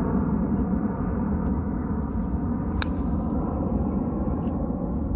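A golf iron strikes the ball once, a single sharp click about three seconds in, over a steady low rumble.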